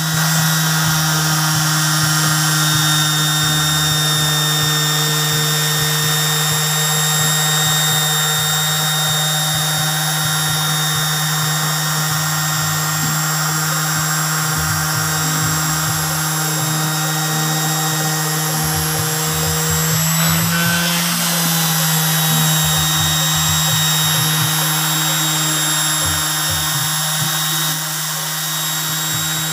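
Ryobi electric orbital sheet sander running steadily while sanding a wooden board: an even motor hum with a high whine over it. It dips briefly in level near the end.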